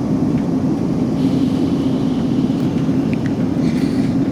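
Steady running noise inside a South Western Railway Class 458 electric multiple unit as the train travels along the line, with a constant low hum.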